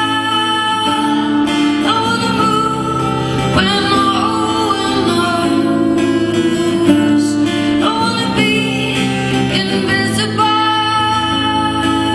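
A woman singing over her own strummed acoustic guitar in a live solo performance.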